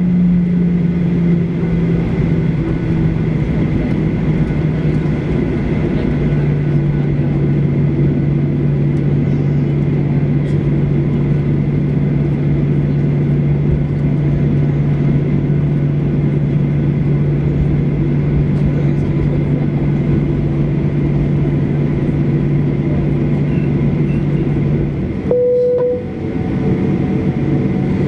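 Cabin noise of a Boeing 737-800 taxiing, heard from a window seat over the wing: its CFM56-7B engines at idle give a steady hum with a low drone. Near the end the noise dips briefly and a short, clear tone sounds.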